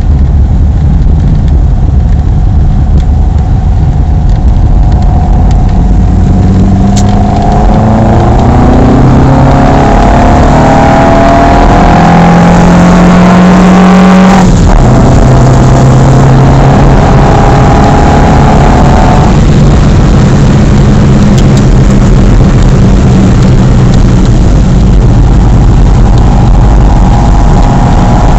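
Ford Escort Mk3 1.6 four-cylinder engine on twin Weber DCNF 40 carburettors, heard from inside the car while accelerating hard. The revs climb steadily to about 6000 rpm, fall sharply about halfway through at an upshift, then pull again in the higher gear.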